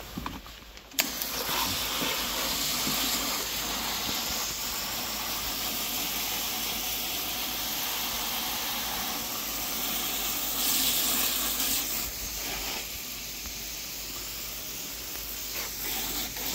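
Water spraying from a garden hose's spray nozzle: a steady hiss that starts suddenly about a second in and holds on, briefly a little louder partway through.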